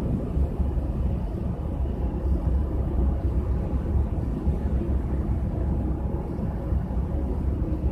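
Steady low rumble from wind buffeting the microphone, mixed with the low drone of a large passenger ferry passing across the harbour.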